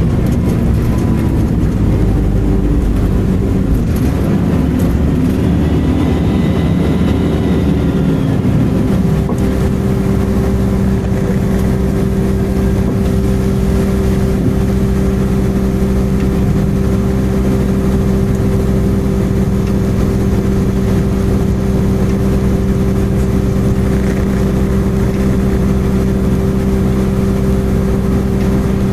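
Volvo B10M bus heard from on board while under way, its mid-mounted six-cylinder diesel and drivetrain running. A faint high screech rises and falls a few seconds in, then the engine settles into a steady drone.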